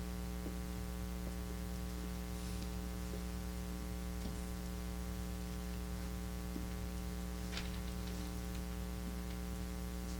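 Steady electrical mains hum with a stack of even overtones, with a few faint ticks.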